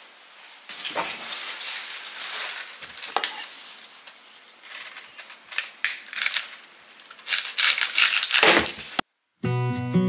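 Kitchen knife cutting a raw turnip on a wooden cutting board: irregular crisp crunching and scraping strokes, with a few knocks of the blade on the board. The strokes are loudest in the last few seconds, then acoustic guitar music comes in near the end.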